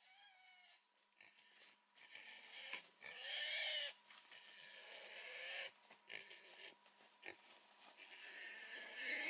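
Wild boar squealing, several separate cries, the longest and loudest about three to four seconds in.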